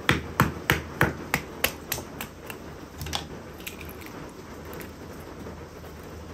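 A fixed-blade knife being knocked down through a short, wet log to split kindling: a quick series of sharp wooden knocks, about three a second, that die away after about two seconds. Steady rain hiss underneath.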